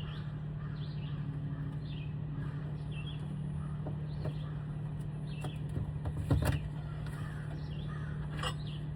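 A steady low hum throughout, with birds chirping now and then and a short cluster of knocks about six seconds in.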